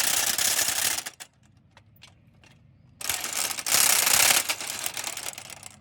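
Two bursts of rapid, rattling metalworking noise from a shop tool on steel: one stops about a second in, the next starts after a pause of about two seconds and fades near the end. A few light clicks fall in the pause.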